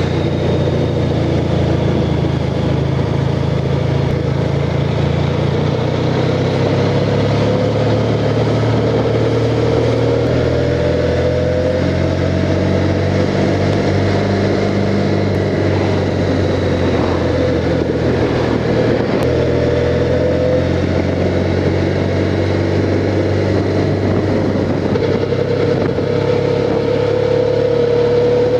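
Honda Crosstourer's V4 engine running while the motorcycle rides along at a fairly steady pace, its pitch drifting gently up and down with the throttle, heard from a handlebar-mounted camera.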